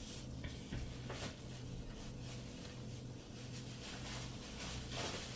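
Quiet kitchen handling noise: a few soft rustles of cabbage leaves and parchment paper over a steady low hum.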